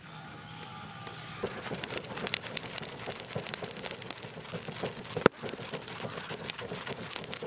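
Charcoal fire crackling and popping under a banana-stem wrapped fish roasting on the coals; the crackle thickens about a second and a half in, with one sharp pop about five seconds in.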